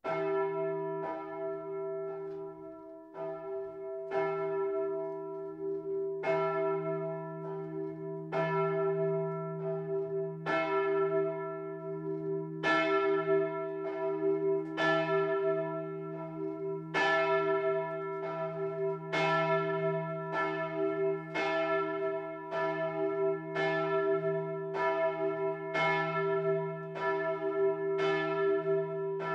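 Large bronze church bell tuned to e', the 1200 kg Betglocke cast by Benjamin Grüninger in 1950, ringing with a stroke of its clapper about once a second. The strokes grow louder over the first dozen seconds, each one ringing on into the next.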